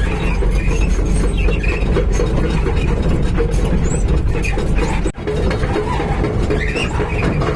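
Heavy vehicle's engine running, a steady low rumble, with a brief break about five seconds in.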